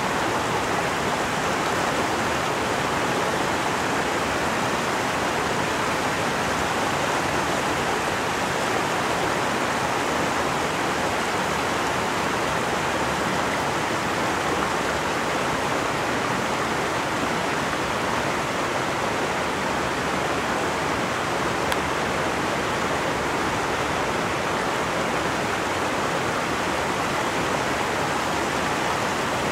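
Steady rushing of a nearby stream, an even, unbroken noise.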